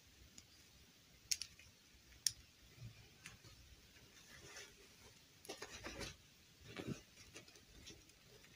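Faint handling noises of a plastic fashion doll and a fabric doll dress: two sharp clicks about a second apart, then short bursts of rustling and scraping as the dress is pulled onto the doll.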